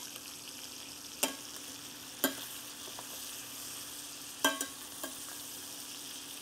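Steaks sizzling steadily in butter in a stainless steel skillet as they are spoon-basted, the metal spoon clinking against the pan several times.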